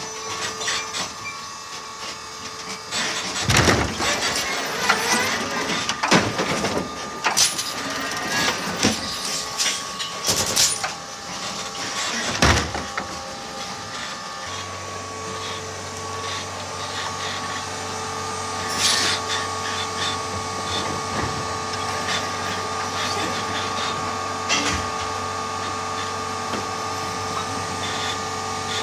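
Electric Heil side-loading refuse truck's automated arm at work: a steady electric whine from its motors and hydraulics, broken by several sharp clunks and knocks as the grabber reaches out, closes on a wheeled recycling cart and lifts it. A low hum joins about halfway through.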